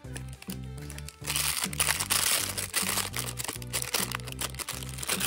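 A clear plastic toy bag crinkling as it is handled, starting about a second in and louder than the background music, which has a repeating bass line.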